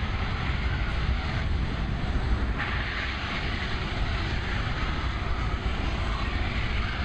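Boeing C-17 Globemaster III's four turbofan engines running at power with the thrust reversers deployed, driving the aircraft backwards on the ground. A steady jet engine noise with a heavy low rumble, its hiss thinning briefly about a second and a half in and then coming back stronger.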